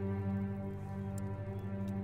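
Background music: a low, steady drone of held tones.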